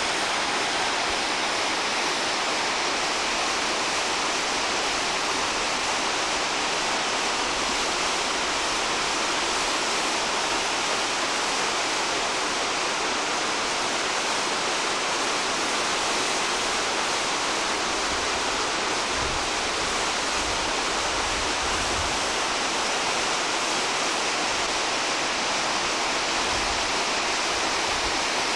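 Mountain stream rushing and cascading over rocks: a steady, even rush of water.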